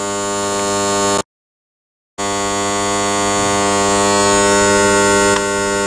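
Steady electric motor hum at an even pitch. It cuts out completely for about a second near the start, then resumes unchanged.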